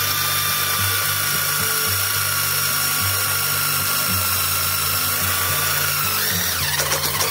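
Cordless impact driver spinning a self-tapping screw into a tile saw stand's thick steel frame: a steady motor whine while the screw's drill point cuts the metal. Near the end the pitch rises and the sound breaks into rapid clicking.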